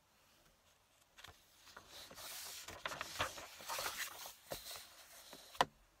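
Paper scroll being rolled on to a fresh blank section and smoothed flat: a spell of paper rustling and crackling, with one sharp tap near the end.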